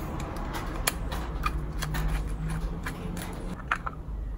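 Screwdriver and small metal carburetor parts from a two-stroke outboard clicking and tapping as the carburetor is handled and put back together: a run of light, irregular clicks over a low steady hum.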